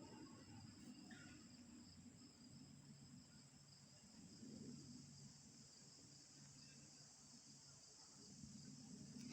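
Faint, steady high-pitched chorus of crickets or similar night insects, with a faint low hum underneath from a couple of seconds in.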